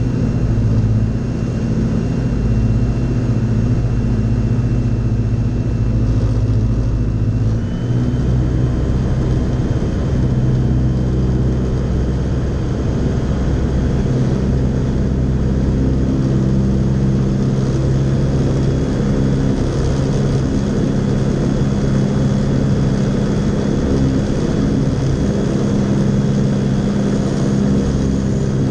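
Fly Synthesis Storch S ultralight's engine and propeller droning steadily in cruise, heard from inside the cockpit. The engine note steps up slightly about seven and a half seconds in.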